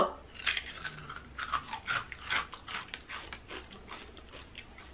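Two people biting into and chewing crunchy corn flour twirl snacks (spicy cheese Crujitos): a quick run of crisp crunches that thins out and fades toward the end.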